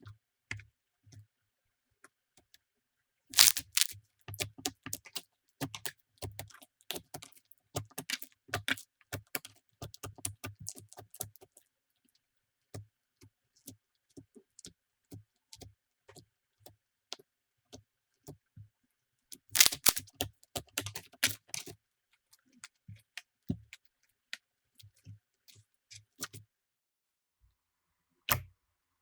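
Slime being squeezed and pressed by hand, giving wet popping and crackling clicks. Dense runs of clicks come twice, with scattered single pops between them.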